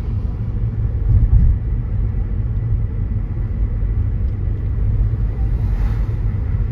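Loud, steady low rumble that cuts off suddenly near the end.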